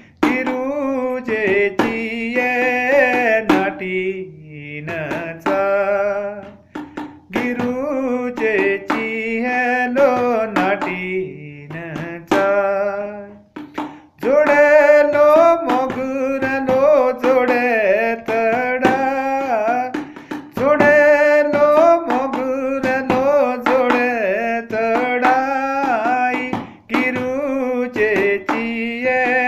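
A man singing a melodic song in phrases with long held notes, over a steady drum beat.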